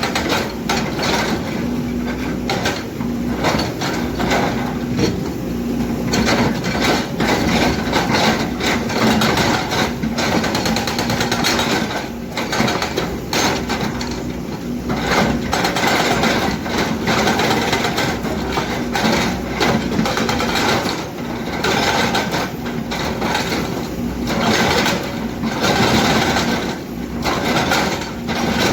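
Hydraulic breaker on a Kobelco excavator hammering rock in rapid repeated blows, over the steady running of the excavator's diesel engine.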